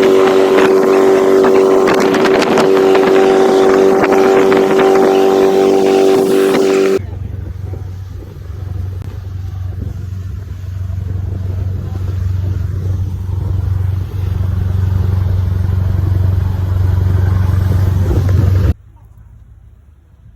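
Boat engine running steadily at speed with a strong hum. About seven seconds in it cuts abruptly to a deeper, lower engine rumble, which stops suddenly near the end.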